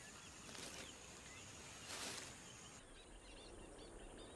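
Faint wildlife ambience: a soft hiss with a couple of brief rustling bursts, then, about three seconds in, many small quick chirping calls, birds or insects, over a steady high thin drone.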